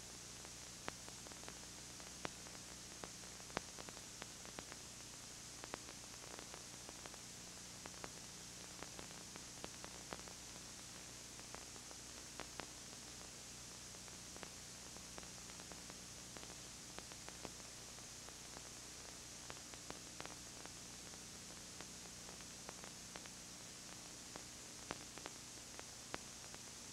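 Steady tape hiss with a low electrical hum and irregular faint clicks and crackles: the noise floor of a videotape transfer of silent surveillance footage.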